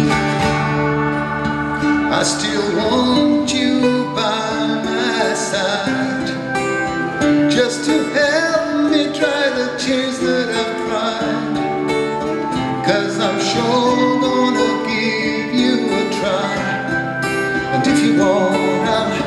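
Live acoustic guitar music: two acoustic guitars playing chords, with a melody line wavering in pitch over them.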